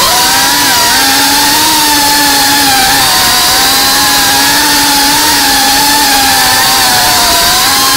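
Motors and ducted propellers of a GEPRC Cinelog35 cinewhoop FPV drone whining in flight, heard through its onboard camera. The pitch holds fairly steady under heavy hiss, dipping briefly about half a second in as the throttle eases.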